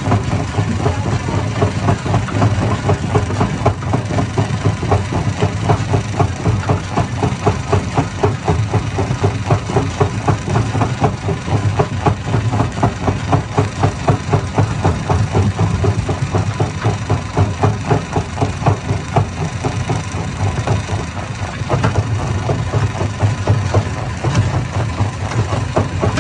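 Hammer-type stone crusher running steadily: a low engine-like drone under a fast, even knocking that carries on without a break.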